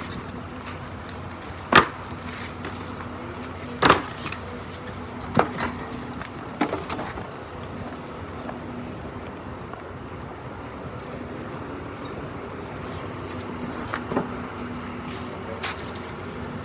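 A handful of sharp knocks and bangs, spaced irregularly and loudest in the first few seconds, over a steady low hum.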